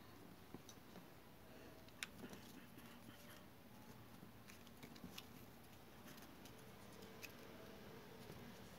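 Faint handling of thin paper strips, light rustles and small taps as they are picked up and laid across one another, with one sharper tick about two seconds in, over quiet room tone.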